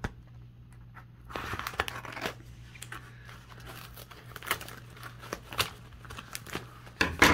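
Mail-package packaging being torn open and handled by hand: irregular crinkling, rustling and tearing with small clicks. It starts about a second in, and the loudest burst comes near the end.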